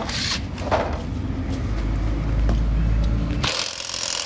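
Impact wrench run on the bolt of a removed car engine mount, with short bursts near the start and a longer, louder burst near the end that stops suddenly.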